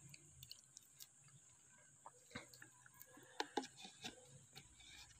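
Faint small clicks and taps of a kitchen knife cutting slices off a raw mango held in the hand, becoming more frequent about two seconds in, over a steady faint high hiss.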